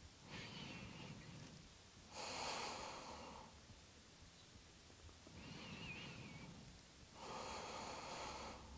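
Faint, slow breathing of a person holding a yoga stretch: four long breaths, every second one louder.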